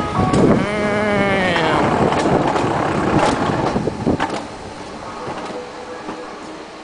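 Alpine coaster sled running down its steel-rail track: a rushing, rattling noise. About half a second in, a drawn-out tone slides slowly down in pitch. Sharp clicks come in the middle, and the noise drops off after about four and a half seconds.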